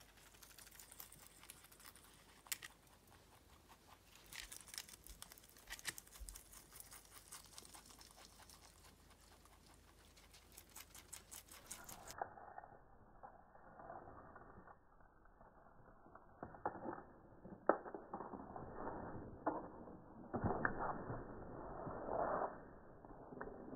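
A guinea pig and a rabbit eating raw spinach leaves from a plastic colander: fast, soft munching and leaf rustling. In the second half it grows louder, with a few sharper knocks as the colander is pushed about.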